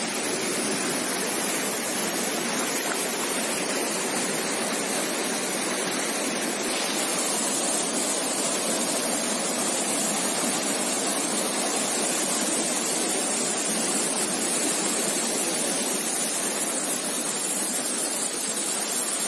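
Floodwater rushing steadily: a continuous, even noise of fast-moving water.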